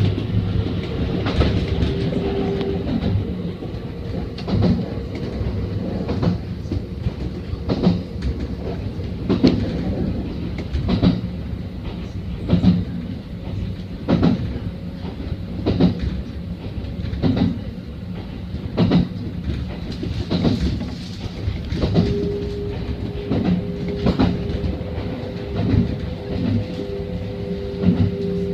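Electric commuter train running along the track, its wheels clacking over rail joints in a regular rhythm about every one and a half seconds over a steady rumble. A steady motor hum comes in about two-thirds of the way through.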